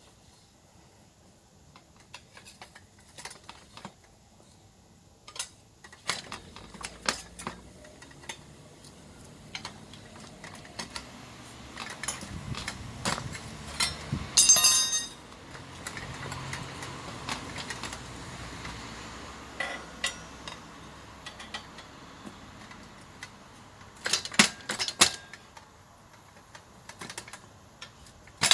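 Tyre levers and tools clinking against a motorcycle wheel rim during a tyre change: scattered metal clicks and knocks, with a short loud rattle about halfway through and a cluster of sharp clinks near the end.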